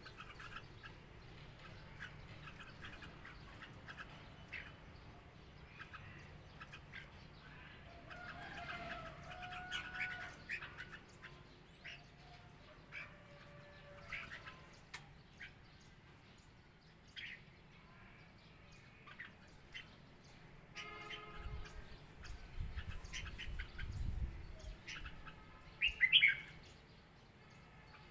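Red-whiskered bulbuls giving scattered short chirps and calls, with a louder burst of quick chirps near the end.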